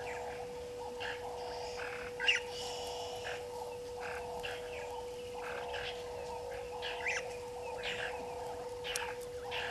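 Outdoor waterhole ambience: short chirping animal calls repeat about every half second, the loudest a little over two seconds in, over a pulsing chorus and a steady low hum.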